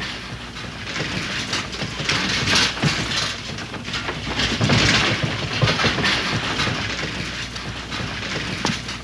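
Busy street ambience: a dense, crackling clatter with many small knocks. It swells over the first couple of seconds and is loudest about halfway through.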